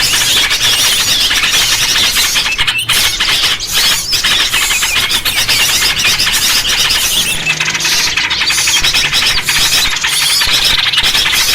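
Many small birds chirping and chattering at once in a dense, continuous, high-pitched chorus: a bird-lure (pikat) recording of noisy small birds, played to draw other small birds in.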